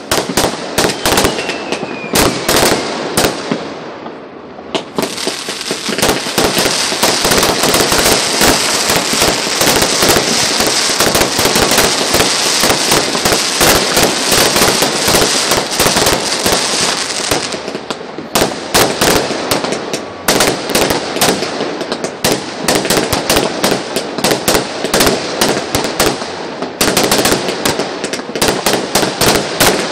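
Fireworks going off in quick succession, a dense mix of bangs and crackling. From about five seconds in there is a steady crackling fizz for roughly twelve seconds, then rapid strings of sharp bangs take over.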